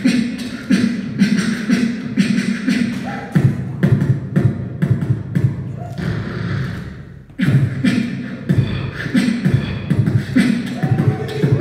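Human beatboxing: a steady beat of mouth-made kicks and snares over a deep hummed bass line. Past the middle a breathy sound fades out briefly, then the full beat drops back in.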